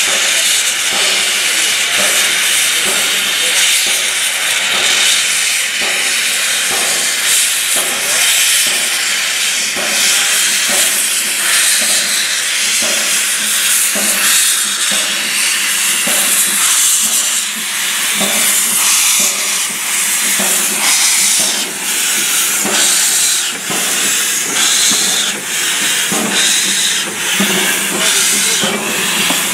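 Small tank steam locomotive moving slowly with its cylinder drain cocks open, hissing loudly as steam blasts out low at the cylinders, with a soft regular chuff under the hiss.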